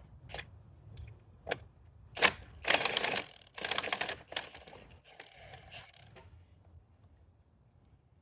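Scattered sharp clicks and a loud knock, then two bursts of rapid mechanical clicking a little before the middle, fading to faint scraping.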